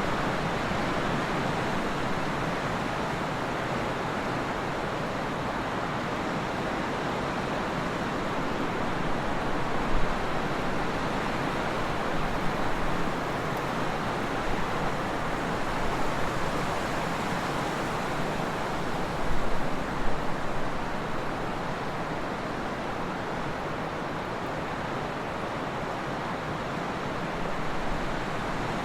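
Trade wind blowing steadily, a full even rushing noise, with a few brief louder gusts about ten seconds in and again near twenty seconds.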